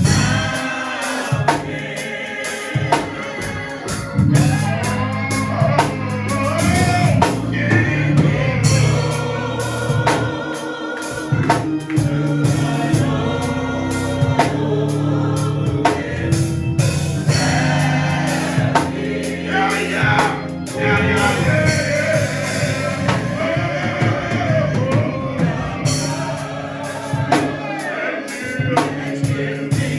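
Gospel music: a choir singing with a steady bass line and a drum kit.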